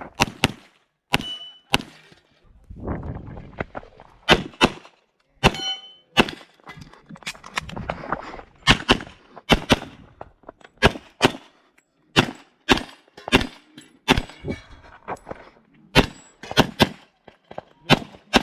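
HPS/STI 2011 pistol in .40 S&W fired many times in rapid strings and quick pairs through a practical-shooting course of fire, with steel targets clanging when hit. There are short pauses between strings, one of them about three seconds in.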